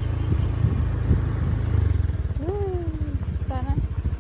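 Motorcycle engine running steadily under way, a dense low rumble. Two brief voice sounds come near the middle, the first falling in pitch.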